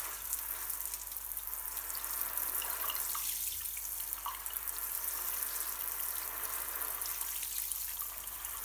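Handheld shower spray running steadily onto a waterproof sock on a foot and splashing on the shower tray: an even hiss of falling water.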